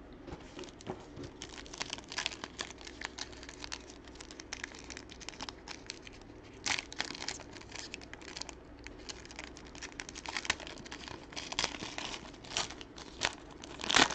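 Crinkling and tearing of card packaging as a box of football cards is opened and handled: irregular rustles and crackles, with louder tears or crinkles about halfway through and near the end.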